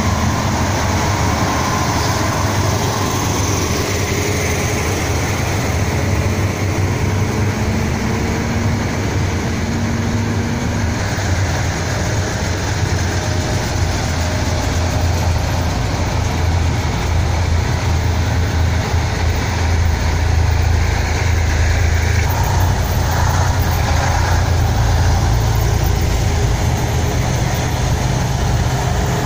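A column of heavy military vehicles driving past: KAMAZ trucks towing anti-tank guns, then Iskander-M missile launcher vehicles, their diesel engines running in a steady, loud low drone.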